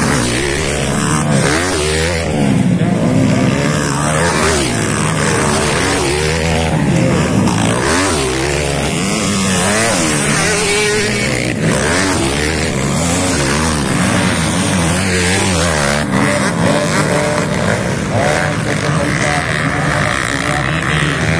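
Several motocross dirt bike engines revving hard as they race past on the dirt track. Their pitch rises and falls over and over as the riders throttle up and back off.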